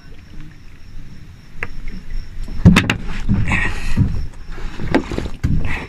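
Sounds aboard a small fishing boat: scattered sharp knocks and clatter, with a brief rush of splashing water about halfway through, over a low rumble.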